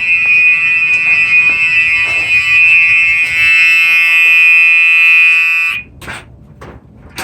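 Gentex fire alarm horn strobe sounding a steady electronic horn tone, cut off abruptly about five and a half seconds in, followed by a few faint knocks.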